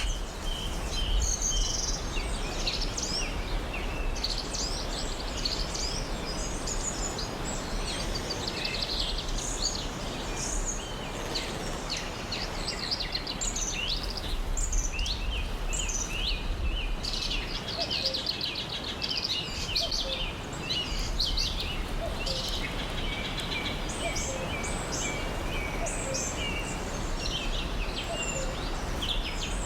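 A chorus of many birds chirping and trilling without pause over a steady hiss of background noise.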